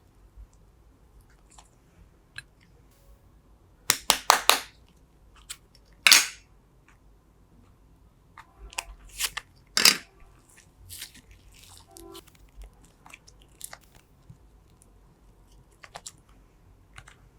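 Crunchy, crackling slime being handled and squished. The crackles come in short clusters about four, six and ten seconds in, with faint scattered clicks between.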